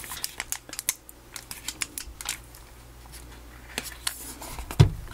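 Clicks and crackles of a Dell laptop battery pack's plastic casing being turned and flexed by hand, with a dull thump near the end.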